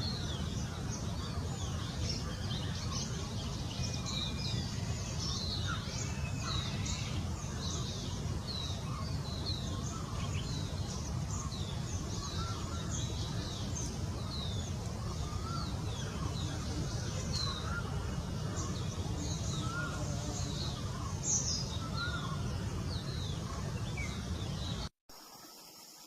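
Many small birds chirping in short, high, falling notes, with some lower chirps mixed in, over a steady low rumble. The sound cuts off abruptly about a second before the end.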